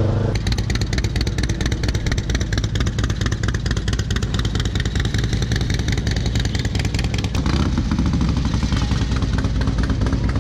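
Cruiser-style motorcycle engines running loudly close by, a rapid, even run of exhaust pulses; the sound changes about three quarters of the way through as another bike takes over.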